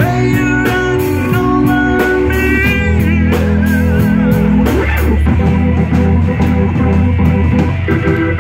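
Live blues-rock band playing: a lead line of bent, wavering notes in the first few seconds over a sustained bass line, keyboards and drum kit with steady cymbal strokes.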